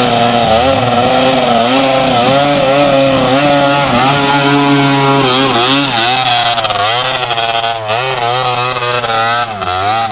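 Two-stroke dirt bike engine revving, its pitch rising and falling with the throttle as it crosses a shallow creek. Water splashes about halfway through as a bike passes close.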